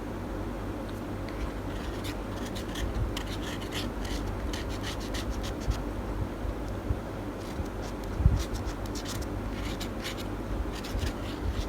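Close-up eating sounds from a slice of nutty Snickers cake: clusters of short crackly scratching and rubbing noises from eating and handling the food, over a steady low hum, with a low thump about eight seconds in.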